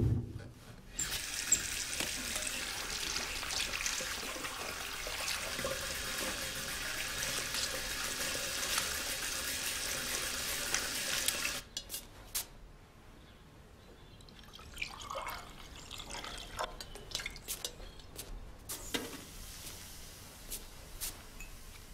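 Water running steadily from a bathroom tap into a sink, then cut off abruptly. After that, quieter kitchen sounds: coffee poured from a glass jug into a cup, and the light clinks of crockery being set down.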